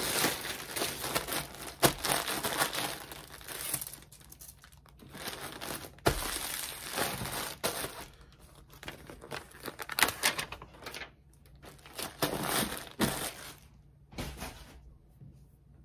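White plastic poly mailer bag crinkling and rustling in irregular bursts as it is handled, filled and pressed flat for shipping, with a few sharp knocks in between.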